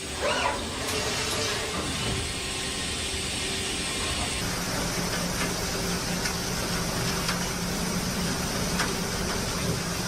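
Heavy machining equipment running steadily, a noisy hum with held tones, which shifts abruptly to a lower, stronger hum about four seconds in.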